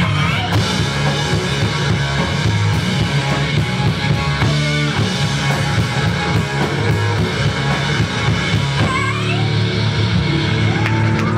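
Live rock music: electric bass guitar and a drum kit playing loudly together, with steady drum and cymbal hits over a heavy bass line.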